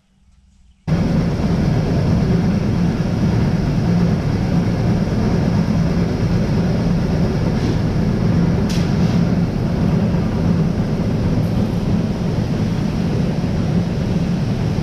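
Grain-bin unloading machinery running, an auger moving soybeans out of the bin into a truck. It cuts in abruptly about a second in and then runs loud and steady.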